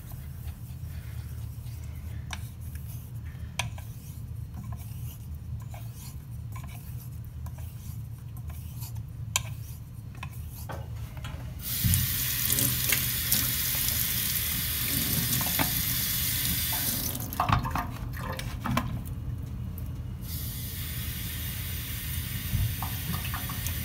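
Straight razor stroked across a slurried Shapton 5K water stone, faint scraping with light clicks. About twelve seconds in, a kitchen faucet comes on and water pours into the steel sink for about five seconds; a few knocks follow, then the tap runs again over the stone, rinsing it.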